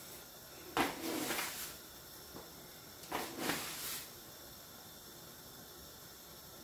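Dry rice being measured out with a mug: grains pouring into a saucepan and the mug scooping through rice in a plastic tub. Two short rustles, each about a second long, the first about a second in and the second about three seconds in.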